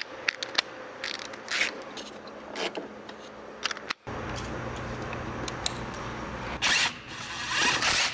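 Tools clicking and knocking against metal in an engine bay. Then a cordless power tool runs in two short spells near the end, spinning a socket on a long extension to undo the bolts of a diesel engine's water pump.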